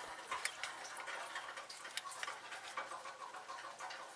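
Faint, scattered small clicks and rubbing from gloved hands handling the plastic thermostat housing and coolant hoses of a Chevy V8 with the engine off.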